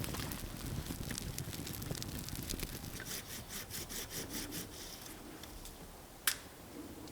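Wood being worked by hand: a rapid, even rasping of about five strokes a second through the middle, like a small saw or rasp, with irregular crackling before it and one sharp click about six seconds in.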